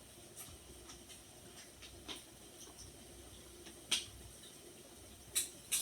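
A few short, light clicks and clinks of utensils against dishes at a meal table, the sharpest about four seconds in and two more near the end, over faint room tone.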